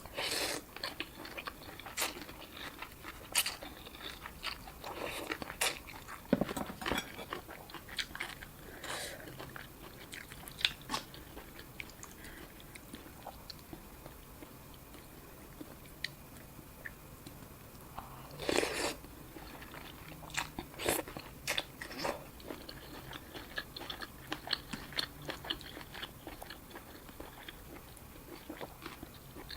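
A person eating a bowl of boat noodle soup close to the microphone: biting, crunching and chewing, with scattered short sharp sounds and a few louder bursts near the start and about two-thirds of the way through.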